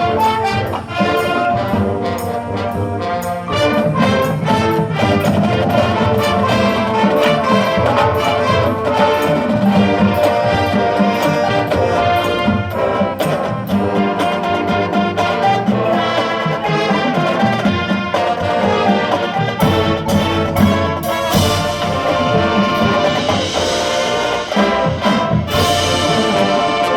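High school band playing, led by brass (trumpets and trombones) over percussion hits, growing brighter and fuller in the last few seconds.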